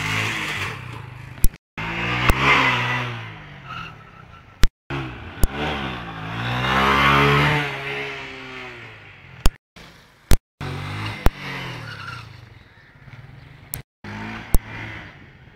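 An engine revving up and back down several times, with sharp clicks and a few brief cut-outs in the sound.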